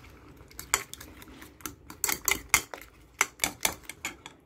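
A metal spoon beating raw eggs in a ceramic bowl: quick, irregular clinks of the spoon against the bowl, coming in short flurries.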